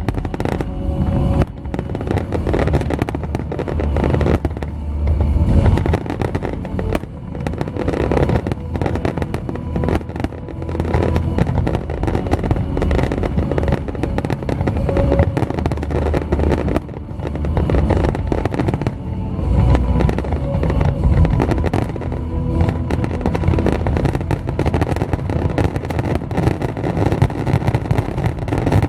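Fireworks display going off in a continuous barrage: dense booming bursts layered with crackle, without a break.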